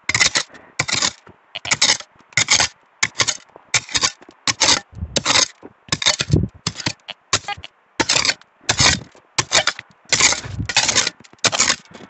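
A hand digging tool scraping and chopping into stony riverbank soil, grating against small stones in short, irregular strokes, roughly two a second.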